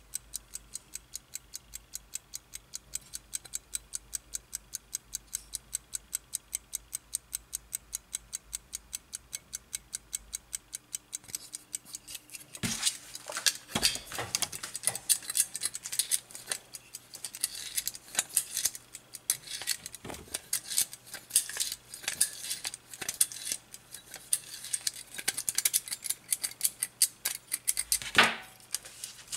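Platform escapement of a Soviet 3-71 ship's wall clock movement ticking rapidly and evenly. About twelve seconds in, the steady ticking gives way to louder, irregular clicking as the mainspring is wound with a key, with one louder knock near the end.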